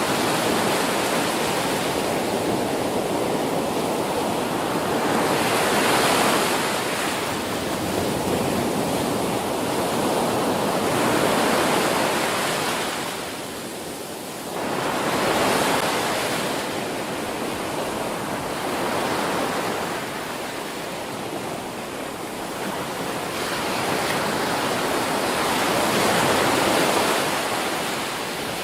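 Ocean surf breaking on a beach: a steady wash of noise that swells with each breaking wave and ebbs between them, about every five seconds.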